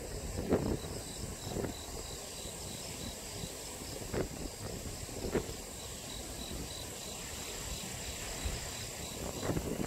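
Insects chirping: an even pulse of about three to four chirps a second over a steady high-pitched trill, with a low background rumble and a few brief knocks.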